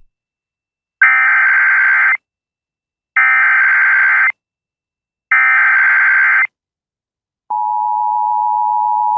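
Emergency Alert System tornado warning: three digital SAME header data bursts, each about a second long with about a second of silence between them, then the steady two-tone EAS attention signal begins near the end.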